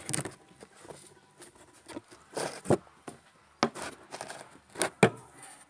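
Handling noises of small objects being picked up and moved about: a string of short knocks and rustles, the loudest a little over 2 s in, about 3.5 s in and twice around 5 s.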